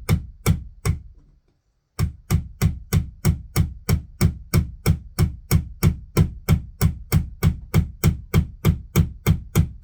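Hammer blows driving a fastener into a wall, steady and even at about three strikes a second, with a brief pause about a second in. The fastener is going in slowly.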